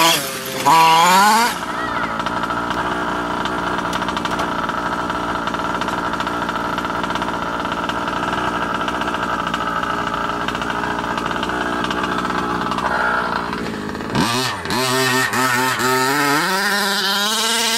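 Losi 5ive 1/5-scale RC truck's two-stroke petrol engine revving briefly, then idling steadily for about twelve seconds, then revving up and down again near the end.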